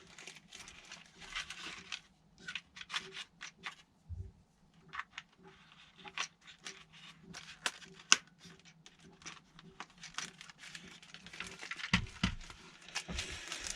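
Plastic parts and packaging being handled by hand: scattered light clicks, taps and crinkling, with one sharper click about eight seconds in.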